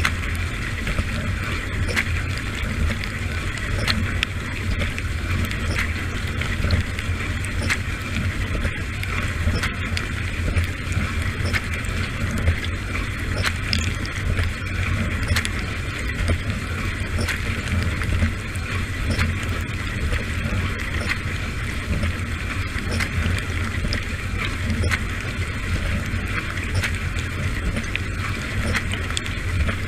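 Dishwasher mid-wash, heard from inside the tub: a steady spray of water over a low, constant pump hum, with scattered small ticks of water striking.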